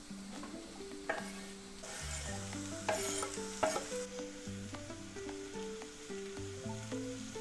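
Sliced champignon mushrooms tipped from a wooden board into a hot pan of frying red onion, sizzling, with three sharp knocks of utensil on board or pan between one and four seconds in, then stirred with a spatula. A light melody of background music plays throughout.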